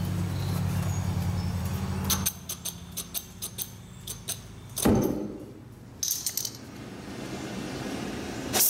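A steady hum cuts off about two seconds in. Then come light metal clinks as a gas torch is handled, a loud pop about five seconds in as the oxy-fuel torch lights, and the hiss of the torch flame, building and loudest near the end.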